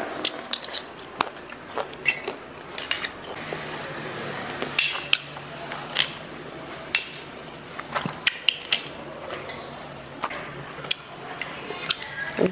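Metal spoons clinking and scraping against small ceramic bowls in irregular sharp clinks, several with a brief high ring.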